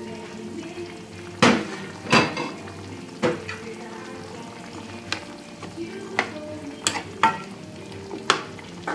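A cooking utensil stirring chicken curry in a pan over a steady sizzle, knocking against the pan about eight times, with the loudest two knocks about a second and a half in.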